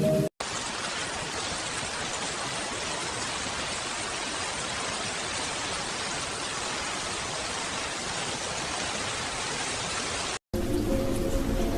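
Steady rain, an even hiss with no separate drops or thunder, cutting in suddenly after a brief silence and cutting off about ten seconds in, where soft music begins.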